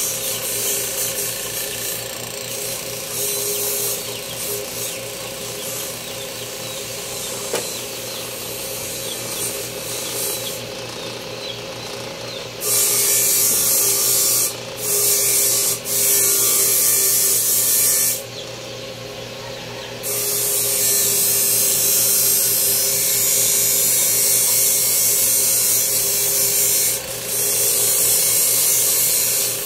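Small power tool motor running steadily, with long loud stretches of high-pitched grinding starting about twelve seconds in, broken by short pauses.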